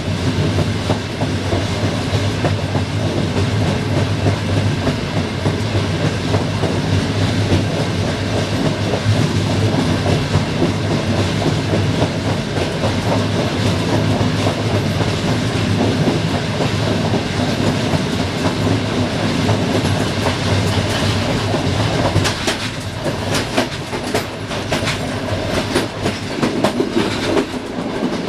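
Diesel-hauled passenger train running: a steady low drone with wheel rumble on the rails. From about twenty seconds in, a run of sharp clicks and clacks as the wheels pass over rail joints and switches.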